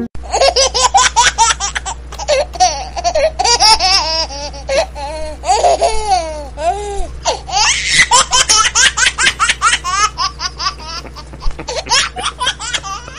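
High-pitched laughter, giggling in quick breathy bursts without a break, over a steady low hum.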